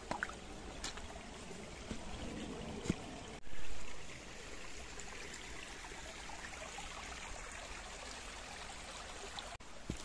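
Stream rushing through a rocky gorge: a steady, even rush of water, with a few faint clicks and one brief louder swell a few seconds in.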